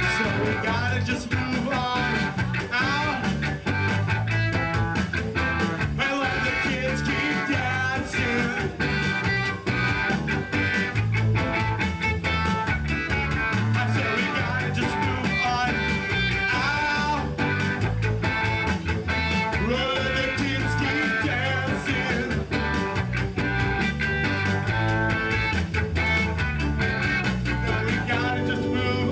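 Live ska-punk band playing: a man singing into a microphone over electric guitar and drums, the drum hits keeping a steady beat throughout.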